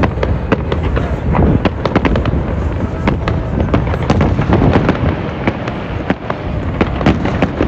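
Fireworks display: aerial shells bursting in a dense, irregular run of bangs and crackles, over a continuous low rumble.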